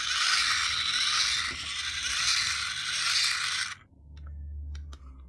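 Packaging being scraped and rustled during unboxing, a steady scratchy noise that stops abruptly just under four seconds in, followed by a few light clicks.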